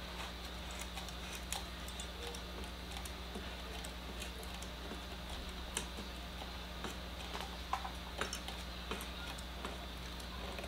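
Spiral compact fluorescent bulb being screwed by hand into a softbox lamp socket: faint, irregular clicks and small scrapes as it turns, over a steady low hum.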